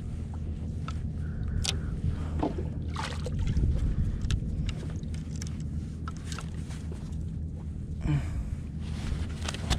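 Sea water lapping against the plastic hull of a sit-on-top fishing kayak over a steady low rumble, with a few light knocks scattered through.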